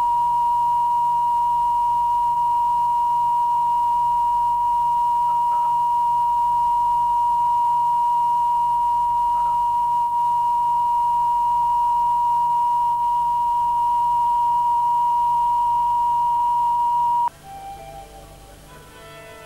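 A steady, loud, single-pitch line-up test tone, the reference tone laid down at the head of a broadcast videotape recording, cuts off abruptly about 17 seconds in. Violins then start playing quietly near the end.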